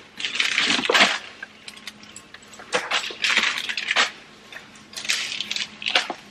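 Small plastic bags of products crinkling and rustling as they are rummaged through in clear plastic storage bins, in three bursts, with small clicks and clinks of items and plastic knocking together.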